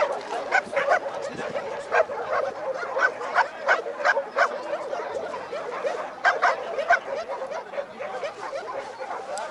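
Dogs barking and yelping in short, sharp calls, over and over.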